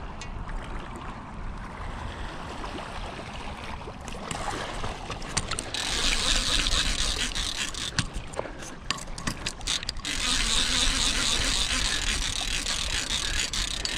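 Heavy conventional fishing reel working under load against a big sturgeon: a steady mechanical whirr with ratcheting clicks. It turns loud about six seconds in, breaks into clicks for a couple of seconds, then runs steady again from about ten seconds.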